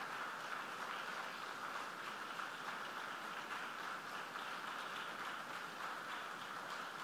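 Congregation applauding steadily, a dense, even patter of many hands clapping.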